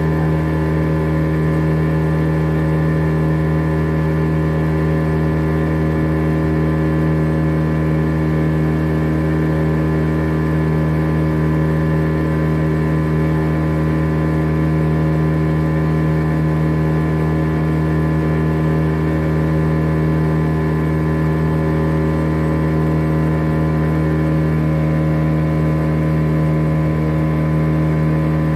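A small boat's motor running steadily at cruising speed, holding one even pitch with no change in speed.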